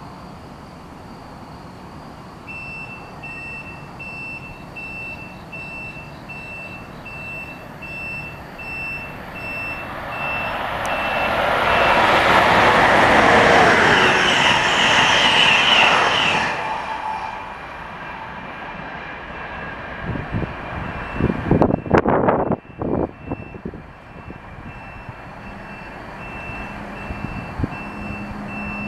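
Amtrak Keystone train, led by an ACS-64 electric locomotive, passing at speed. Its rush of wheel and air noise builds over several seconds, holds loud for about four seconds, then drops away suddenly as the last car goes by. A few seconds later come loud gusts as the train's wake buffets the microphone, with a steady series of short high beeps running underneath throughout.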